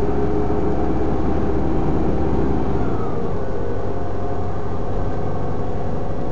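Engine and road noise of a moving city bus heard from inside the cabin: a steady drone with a held whine over a low rumble. The rumble eases a little about three seconds in.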